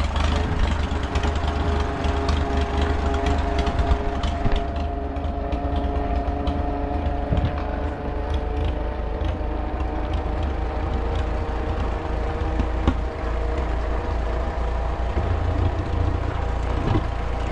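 1937 Farmall F20's four-cylinder engine running steadily with no muffler as the tractor drives off, an unmuffled exhaust note holding a steady pitch. It is running rich, which the owner puts down to a flooding carburetor.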